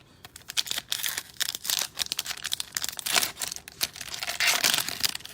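Crinkling and tearing of a plastic cello pack wrapper as a pack of trading cards is torn open and handled, a dense run of crackles and sharp clicks.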